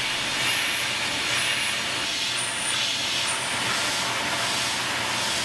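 Steady hiss of a mist-coolant spray nozzle while a Tormach 770 CNC mill peck-drills an aluminium part with a #36 drill. Four short high squeals come about a second apart as the drill pecks.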